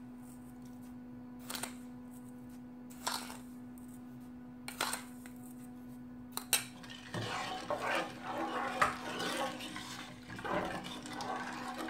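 A wooden spoon stirring small pasta rings in water in a non-stick pot: a few separate light knocks at first, then from about seven seconds continuous scraping and sloshing as it is stirred. A steady low hum runs underneath.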